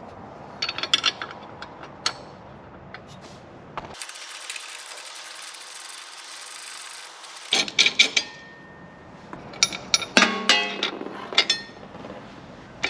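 Hand ratchet and open-end wrench working the sway bar end-link nuts on a Can-Am Spyder F3: bursts of metallic ratchet clicks and tool clinks, some briefly ringing, with a few seconds of steady hiss in the middle.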